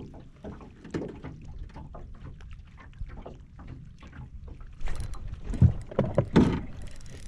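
Scattered light taps and knocks in a small fishing boat as a freshly caught fish is unhooked and handled, with a few louder thumps about five to six and a half seconds in.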